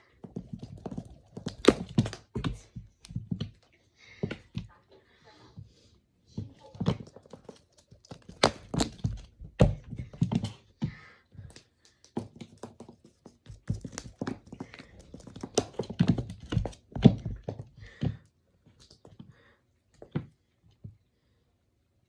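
A kitten pouncing and scrambling on a wooden floor while playing with a feathered toy: repeated thumps of landing paws and body, with light scuffs and taps, thinning out to a few scattered taps near the end.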